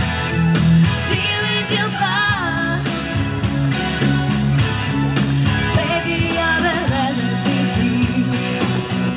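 A woman singing live into a microphone over amplified backing music, holding a long wavering note about two seconds in.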